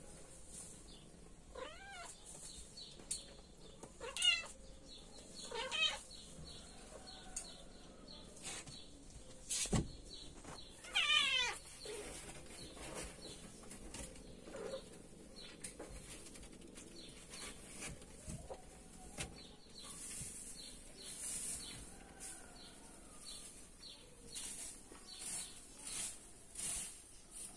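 Kittens mewing in short, wavering high calls, four or five times with gaps between, while nursing. There is one sharp click about ten seconds in.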